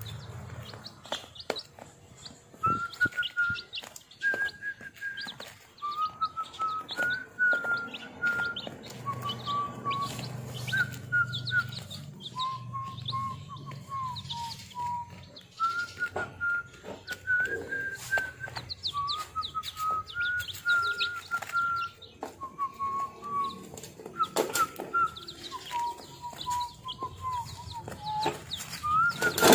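Week-old chicks peeping in short high calls and pecking at crumbled feed with sharp clicks, over a slow whistled melody.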